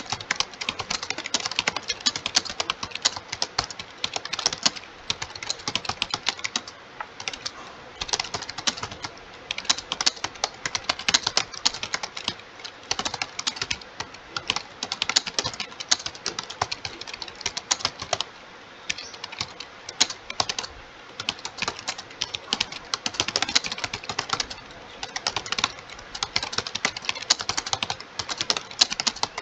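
Fast, continuous typing on a computer keyboard, a dense run of key clicks broken by a few short pauses.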